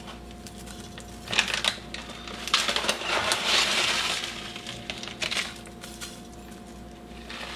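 Dried onion flakes rustling and pattering as a metal tablespoon scoops them and scatters them over food in a slow cooker crock: a few short bursts, with a longer one about three seconds in.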